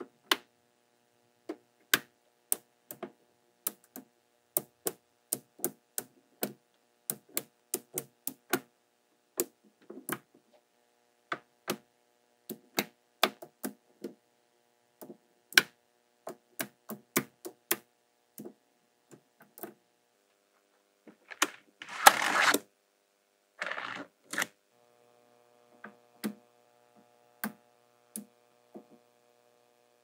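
Small magnetic balls clicking sharply and irregularly as strips of them are snapped into place on a magnet-ball structure. A little after three quarters of the way through come two longer, noisier bursts.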